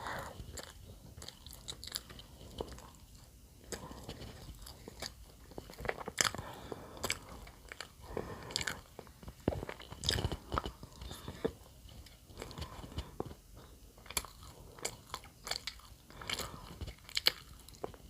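Close eating sounds: bread being bitten and chewed, an irregular scatter of short sharp clicks coming several at a time with brief quieter gaps.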